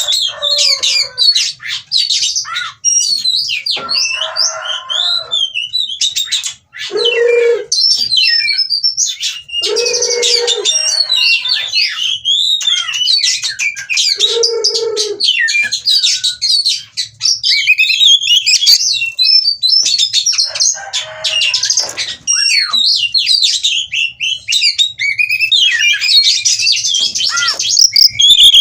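Oriental magpie-robin (kacer) singing a continuous, rapid, varied song of high whistles and chirps, with several short harsh, lower notes mixed in; it is the full song of a bird in breeding condition.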